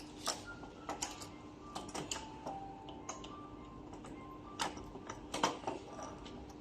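Irregular light clicks and knocks, a few per second with one louder knock about five and a half seconds in: tools and small metal parts being handled during scooter motor replacement work. A steady low hum sits under them.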